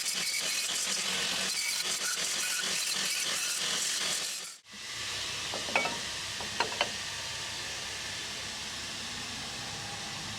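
Steel being worked with a power tool: a steady, crackling hiss that cuts off sharply about halfway through. A quieter steady hiss follows, with a couple of short chirps.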